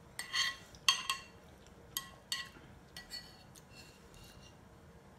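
Metal spoon clinking and scraping against a bowl while scooping rice: a run of sharp, ringing clinks over the first three seconds or so, then fainter scraping.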